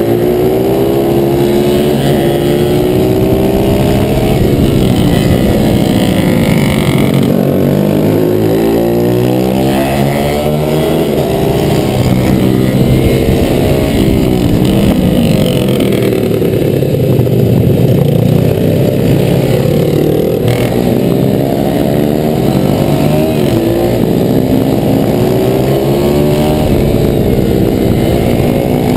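Pit bike's YX 140cc single-cylinder four-stroke engine under race load, heard on board. It revs hard, its pitch climbing and dropping again and again as it accelerates out of corners and backs off into them.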